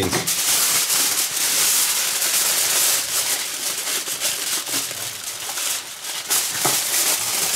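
Aluminium grill foil crinkling and rustling as it is folded over a tray and crimped tight around its edges. The crinkling is loudest in the first three seconds or so, then softer.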